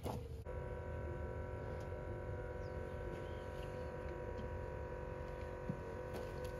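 Cybertruck's air-suspension compressor starting up about half a second in and running with a steady hum as it raises the truck's ride height.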